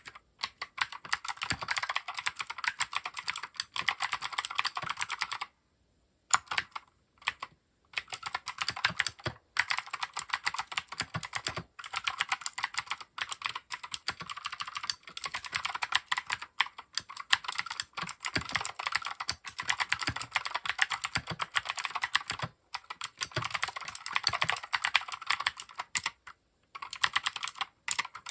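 Typing on a Keychron K6 mechanical keyboard fitted with OEM-profile dye-sublimated PBT keycaps: a fast, irregular run of key clacks, broken by a few short pauses.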